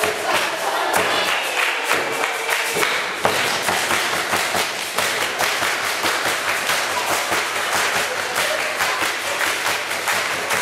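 Group of schoolchildren singing, clapping and stamping their feet for a Rukiga jumping dance. From about three seconds in, quick hand-clapping and stamping take over.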